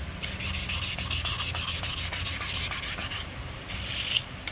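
Garden hose spray nozzle hissing steadily against an outboard motor's lower unit as it is scrubbed clean. The spray cuts out briefly about three seconds in and again near the end.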